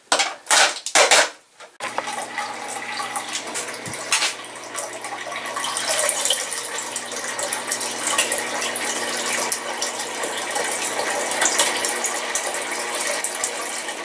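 A few loud clinks of glass marbles in an acrylic grow pocket, then about two seconds in a small water pump starts with a steady hum. Water trickles and splashes down through the grow bed into the tank below.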